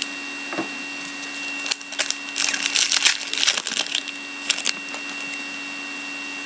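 A 2011-12 SP Authentic hockey card pack's wrapper being torn open and crinkled, a dense crackling from about two to four seconds in, with a few sharp clicks of handling before and after.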